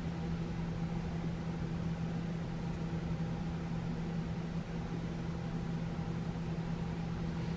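A steady low hum with one constant tone and a faint hiss above it, unchanging throughout.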